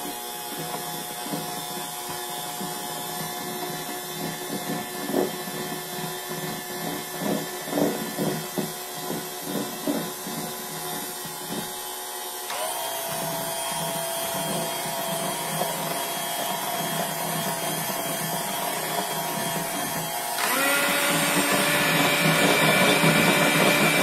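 Electric hand mixer running, its beaters working powdered sugar into browned butter and cream in a glass bowl. There are irregular knocks in the first half; then the motor steps up in speed and gets louder about halfway through, and again near the end.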